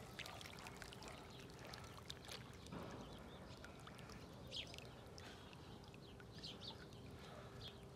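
Faint trickling of water from a garden hose into wet soil, with scattered small drips and splashes.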